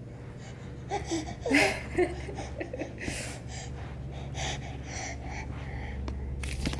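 Eight-month-old baby's short breathy gasps and little pitched squeals and grunts as she crawls, the loudest about a second and a half in. A few sharp bumps near the end as she reaches the camera.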